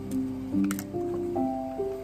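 Background music: a soft melody of held notes stepping upward in pitch, with a single light click a little under a second in.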